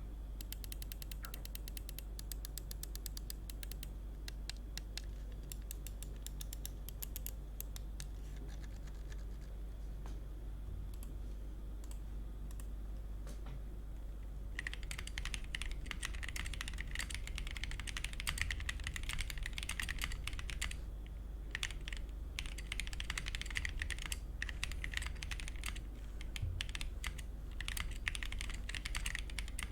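Typing on a MonsGeek M1 aluminium 75% mechanical keyboard with Akko CS POM Pink linear switches and XDA PBT keycaps. Scattered keystrokes for the first half, then fast continuous typing from about halfway in, over a steady low hum.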